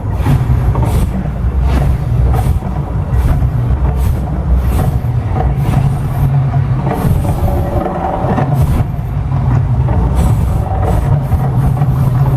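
The Mirage volcano show's eruption: a deep, steady rumble with repeated short bursts as gas flames fire up, over loud show music.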